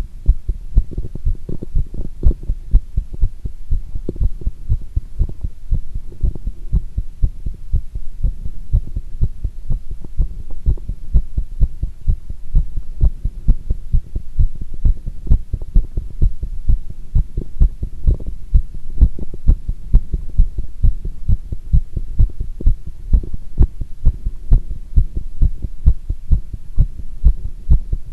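Human heart sounds: a steady, quick rhythm of low heartbeat thumps, recorded during squats.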